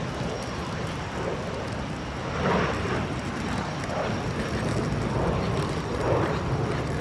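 Jet airliner climbing away, heard as a steady rumble, with wind buffeting the phone's microphone in a few gusts.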